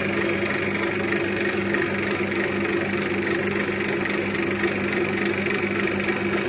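Wood lathe running steadily with a constant hum and a faint high whine, spinning a sycamore rolling pin while it is finished by hand with an abrasive cloth.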